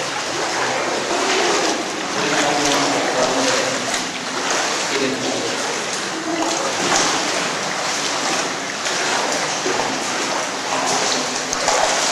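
Several people wading through shallow cave water, splashing and sloshing with each step over a steady watery hiss, with faint voices underneath.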